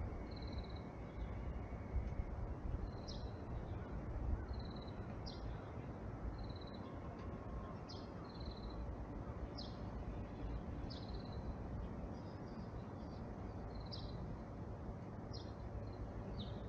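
Short, high-pitched chirps repeating about once a second, short steady notes alternating with quick falling ones, over a steady low background hum.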